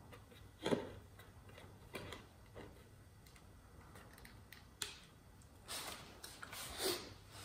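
Scattered knocks and clicks of wooden boards and cordless tools being handled on a concrete floor, the loudest about a second in and another near the end.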